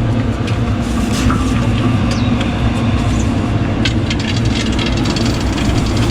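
Electric tricycle driving over rough ground: a steady low hum with tyre noise, and rattles and knocks from the body.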